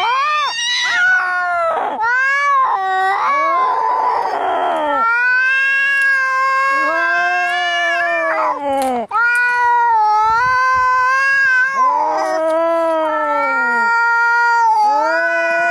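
Domestic cats caterwauling in a fight standoff: long, drawn-out yowls that rise and fall in pitch, almost without a break, with a harsh hiss about four seconds in.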